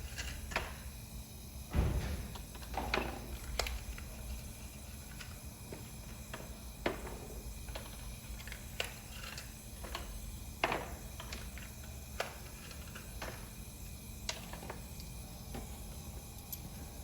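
Scattered light clicks, taps and rustles of hand work with small parts and tools, with a duller knock about two seconds in.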